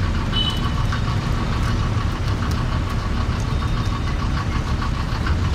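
A motor vehicle engine running steadily: a continuous low rumble, with a short high tone about half a second in.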